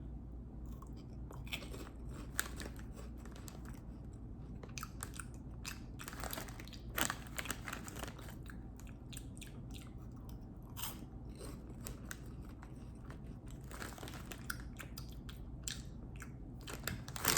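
A person chewing and crunching potato crisps (chicken-flavoured), with irregular sharp crunches scattered throughout.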